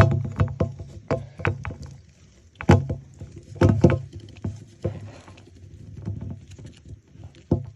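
Hands handling a toy doll close to the microphone: irregular rustling, scraping and tapping clicks as fingers dig a small surprise out of the doll's tightly packed synthetic hair.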